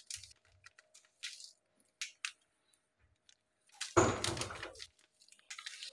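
Foil spice sachet crinkling and rustling in short scattered bursts as powdered masala is shaken and scraped out of it with a spoon, with one louder crinkle about four seconds in.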